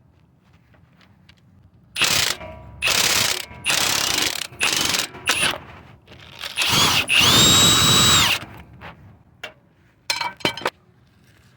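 Ratcheting tool spinning out a 17 mm motor-mount bolt: about two seconds in, five short bursts, then a longer run of about a second and a half with a steady high whine, and two brief bursts near the end.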